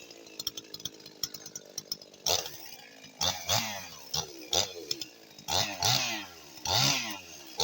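Husqvarna 55 Rancher two-stroke chainsaw, in stock form and warmed up, idling at first, then revved in about six short bursts, each rising and falling in pitch, from about two seconds in.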